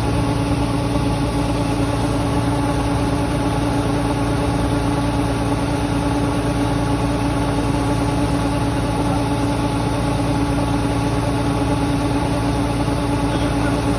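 Engine of rice-harvesting machinery running steadily at constant speed, a steady pitched drone with no revving or change.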